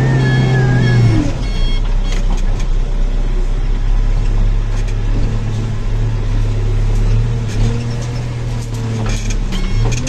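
Backhoe loader's diesel engine running, heard from inside the cab. The engine note drops about a second in, picks up again through the middle and eases off near the end. A repeating electronic beep sounds at the start and again near the end.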